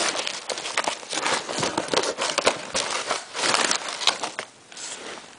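Magazine paper rustling and crinkling as a hand rummages inside a cardboard box, with many small clicks and knocks. It dies down about four and a half seconds in.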